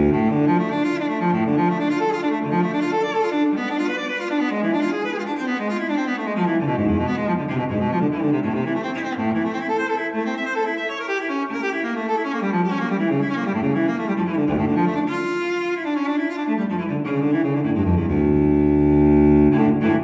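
Instrumental background music with sustained, melodic notes, ending on a louder held chord.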